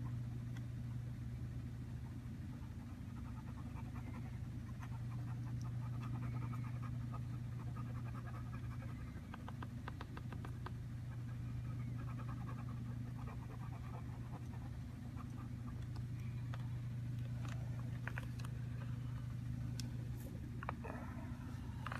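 A marker pen scratching across a small paper card in quick short strokes, with a run of quick ticks about ten seconds in, over a steady low hum.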